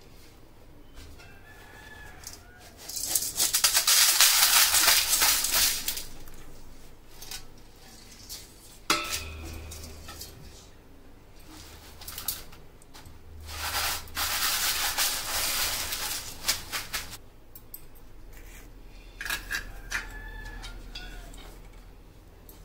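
Crisp fried potato shreds rustling against tissue paper as they are blotted, in two bursts a few seconds long, with a sharp click in between.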